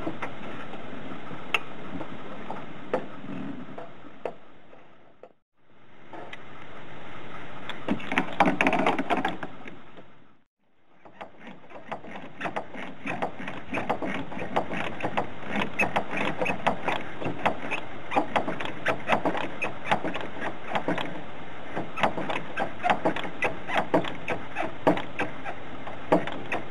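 Hands working on a transmission cooling line fitting at a car radiator: a dense run of irregular small clicks and knocks over a rustling bed. The sound fades out and back in twice, about five and ten seconds in.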